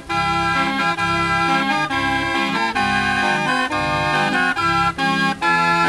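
Hand-cranked barrel organ playing a tune: a reedy pipe melody over a regular beat of bass notes and chords.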